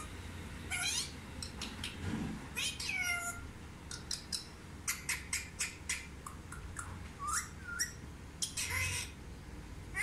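Indian ringneck parrot calling: a few short calls that slide down in pitch, and a run of quick sharp chirps, about three or four a second, in the middle.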